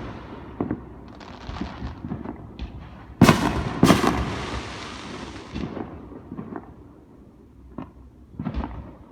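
Fireworks going off: two loud booms about three seconds in, under a second apart, each trailing a crackle that fades over a couple of seconds, with lighter pops before them and a cluster of crackling pops near the end.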